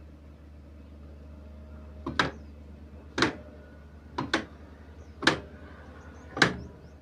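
Old 12 hp diesel engine firing slowly, with five sharp exhaust beats about a second apart starting about two seconds in, over a steady low hum.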